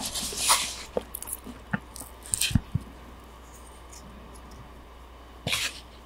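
Close-miked eating sounds of raw salmon and rice: wet chewing and lip smacks with small clicks over the first few seconds, a quiet pause, then one short breathy smack near the end.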